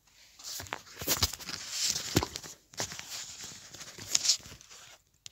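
Rustling and bumping close to the phone's microphone as the phone and the book's pages are handled, with irregular sharp clicks, stopping about five seconds in.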